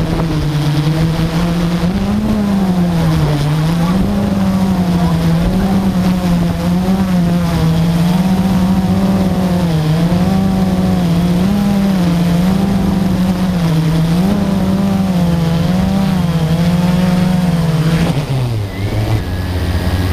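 Multirotor drone's motors and propellers humming close to the onboard camera, the pitch wavering up and down as it manoeuvres. Near the end the pitch drops sharply as it comes down to land.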